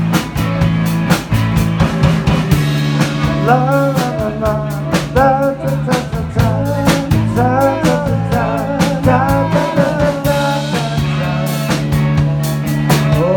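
Live rock band playing an instrumental passage: electric guitars, bass guitar and a drum kit keeping a steady beat. A melodic lead line with bending notes comes in a few seconds in and carries on until near the end.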